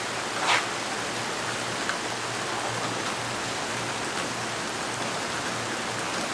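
Steady rain falling, an even hiss of rainfall, with one short louder burst about half a second in.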